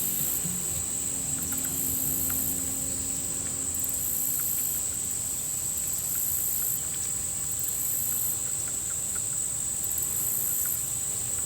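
Insects trilling steadily in a high, even drone, with a second, higher buzz pulsing on and off about once a second.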